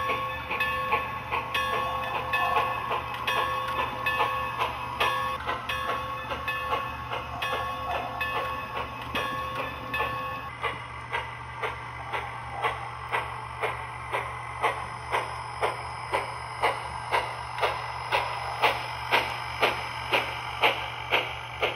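Sound-equipped HO scale model of a 2-10-2 steam locomotive moving slowly through the yard. A bell rings for about the first half. Then the exhaust takes over as steady chuffs, about two a second, over a low hum.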